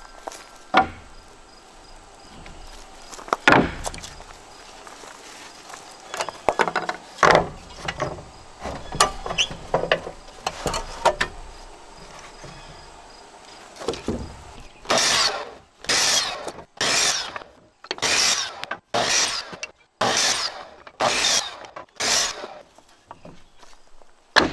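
Lumber being handled with scattered knocks and clatter of boards, then a saw cutting through wood in about eight rough strokes, roughly one a second.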